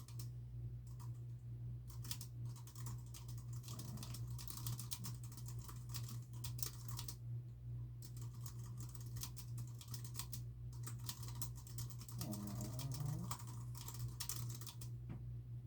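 Typing on a computer keyboard in fast runs of key clicks, with short pauses between bursts. A steady low hum runs underneath, and a short low sound rising in pitch comes about twelve seconds in.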